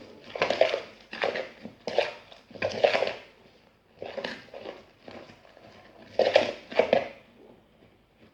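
Fluffy PVA-glue slime being stirred and squished in a bowl: a series of short noisy squishes, roughly one a second, with a quieter stretch in the middle.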